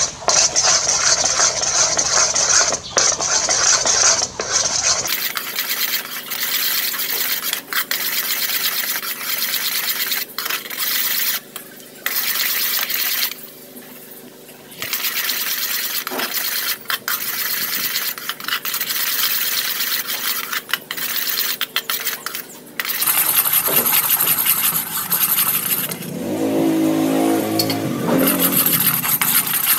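A thick brown sauce boiling hard and sizzling in a pot, with a metal spoon stirring and scraping against the pot. The sizzle drops away briefly about halfway through.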